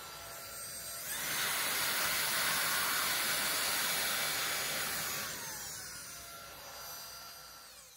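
Small handheld vacuum running with a high whine, its nozzle drawn along a 3D printer's X-axis rail to suck up dust and black belt particles. It gets louder and higher about a second in, then its pitch sinks and it fades over the last three seconds.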